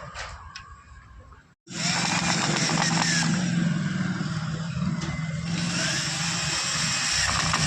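An electric power tool's motor running steadily at speed. It starts abruptly about a second and a half in, after a quieter stretch with a few clicks.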